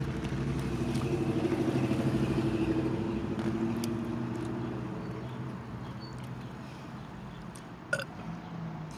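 A long, low burp that swells over the first couple of seconds and fades out about five or six seconds in, followed by a short sharp click near the end.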